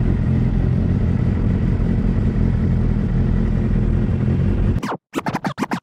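Motorcycle engines running steadily at a standstill, a dense low rumble heard from the handlebar. About five seconds in it cuts off suddenly, and a few short sharp clicks follow.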